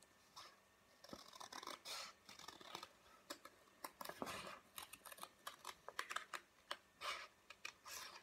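Scissors cutting through a folded sheet of coloured card: a run of faint, irregular snips.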